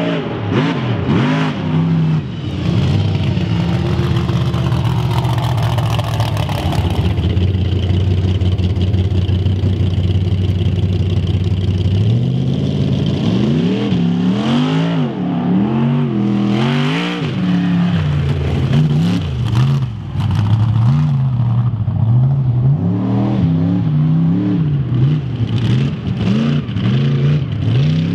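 Mega truck engine running hard, held at a steady high pitch for about ten seconds, then its revs rising and falling over and over.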